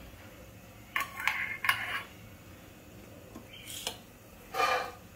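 Metal spoon and utensils clinking against pots and spice containers: a cluster of clinks about a second in and a couple more near the end.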